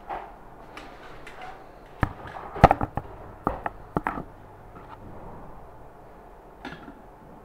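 A quick run of sharp knocks and clicks, hard objects handled and set down on a workbench, about a second in and lasting some two seconds, then a faint double knock near the end.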